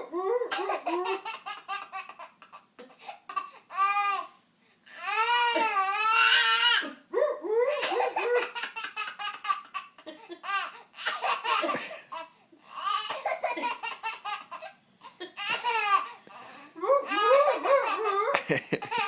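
A child laughing hard in repeated fits of giggles and belly laughs, set off by a person's vocal imitation of a seal, with a few long, pitched, swooping calls in among the laughter.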